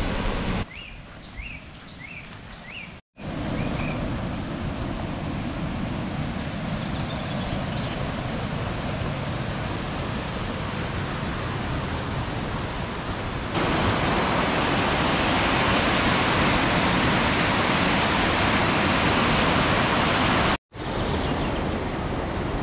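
Rushing water of a waterfall, a steady roar heard across several short clips that cut in and out. A quieter clip about a second in carries a few high chirps over the water.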